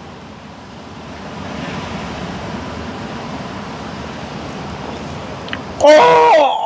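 A steady rush of noise from surf and wind, then about six seconds in two men let out a loud, drawn-out 'ahh!' of satisfaction after downing a shot of soju, the burn of the alcohol drawing the cry.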